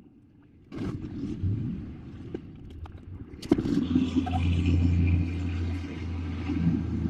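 A motor vehicle's engine running close by, with a sharp knock about three and a half seconds in, after which a steady low engine note holds.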